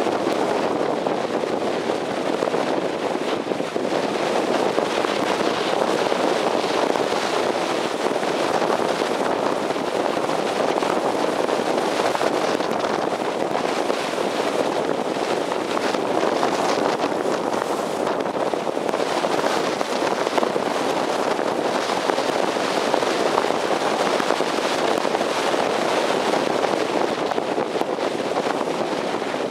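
Wind blowing across the microphone of a roof-mounted camcorder on a moving car: a steady rushing noise with fine crackling from the buffeting.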